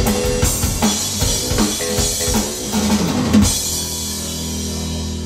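Rock music with a drum kit and bass guitar played back over PMC loudspeakers in a demo room. The drumming stops about three and a half seconds in, leaving a held low chord ringing on.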